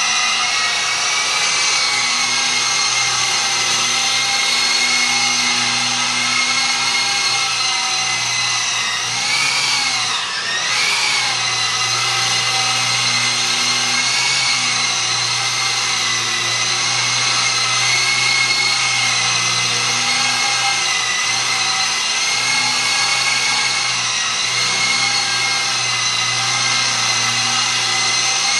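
FMA Direct Dragonfly 5 micro electric RC helicopter in flight: a steady, high whine of its electric motor and spinning rotors. About a third of the way in, the pitch dips and comes back up twice.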